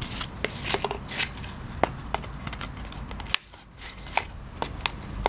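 Scissors snipping through a thin plastic flower pot: a run of sharp, irregularly spaced snips and crunches.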